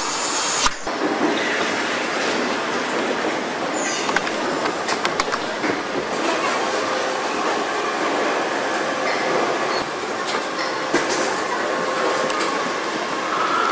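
Car assembly-line factory noise: a steady mechanical din with scattered clicks and clanks of parts being fitted, opening with a short loud hiss.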